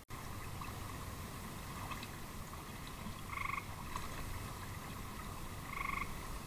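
Two short frog calls, each about a third of a second long and about two and a half seconds apart, over a steady hiss.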